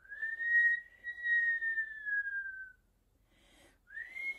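A person whistling to imitate the wind blowing: one long whistled note that drifts slowly down in pitch for nearly three seconds. After a short pause, a second whistle starts near the end with a quick rise in pitch.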